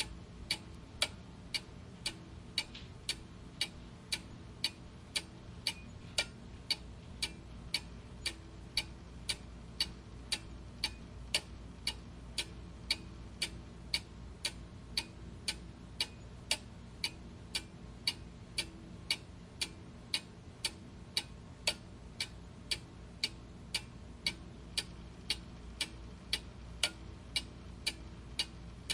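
Clock ticking steadily, about two even ticks a second, over a faint low background hum.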